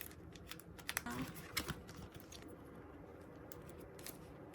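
Light clicks and taps of photocards and plastic card sleeves being handled and set down, with several sharper clicks in the first two seconds.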